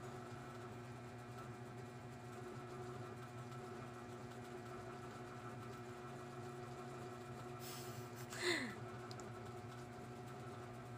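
A steady low mechanical hum of several fixed tones, like a fan or motor running, with one brief louder sound with a short falling pitch about eight and a half seconds in.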